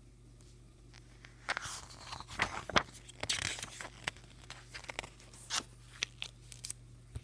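Paper rustling and crinkling as a hand turns the pages of a paperback graphic novel, loudest between about one and a half and four seconds in, followed by scattered sharp clicks and taps from handling the book.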